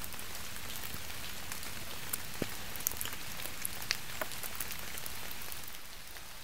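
Light rain falling: a steady hiss with scattered ticks of single drops hitting water and nearby surfaces. It eases slightly near the end.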